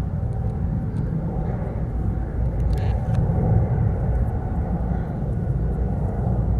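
Steady low outdoor rumble of background noise, with a few faint clicks about three seconds in.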